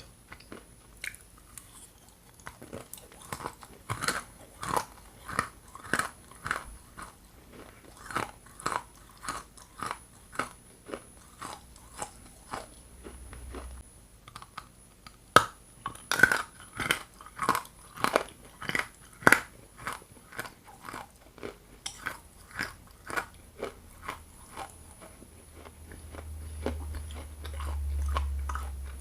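Close-miked chewing of hard lumps of Ural edible clay: sharp crunches about twice a second, with a short pause before the loudest bites near the middle. A low rumble comes in near the end.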